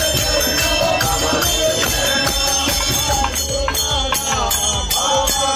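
Devotional singing with jingling hand percussion keeping a steady, quick beat, about four strokes a second.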